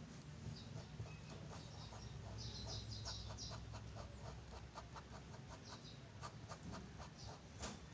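Ballpoint pen scribbling on lined notebook paper: a quick run of short, faint scratching strokes, several a second, as small hatched marks are drawn.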